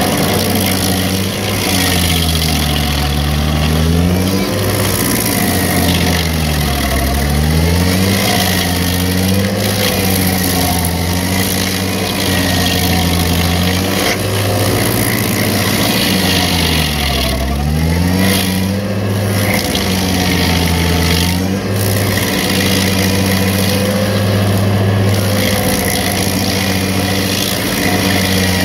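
Vermeer 502 stump grinder running hard, its cutter wheel grinding into a tree stump. The engine's pitch sags and recovers several times as the cutter wheel takes load, over a steady hiss of chipping wood.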